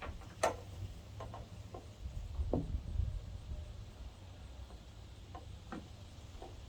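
Scattered light clicks and knocks of a tailgate assist mount being worked into its hole in a pickup's tailgate, the sharpest click about half a second in, over a steady low rumble.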